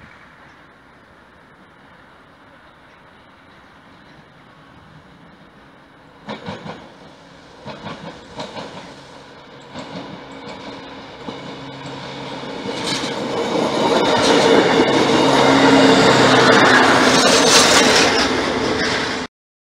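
DB Class 628 diesel multiple unit approaching and passing close by: faint at first, then wheel clatter over the rail joints, growing loud as the underfloor diesel engine and wheels go past, with a steady engine hum under the noise. The sound cuts off suddenly just before the end.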